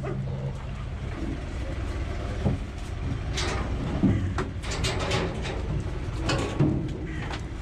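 Caged feeding vehicle's engine running with a steady low rumble, with a few short knocks and rattles from the vehicle.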